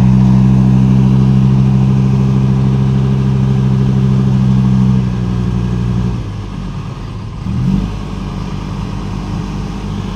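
Diesel dump truck engine held at high, steady revs for about five seconds, then easing off to a lower, rougher note. It gives one short rev about two and a half seconds before the end.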